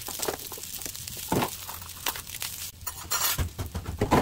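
Spatula stirring and scraping fried rice around a frying pan: irregular soft scrapes and taps, with a brief hiss about three seconds in.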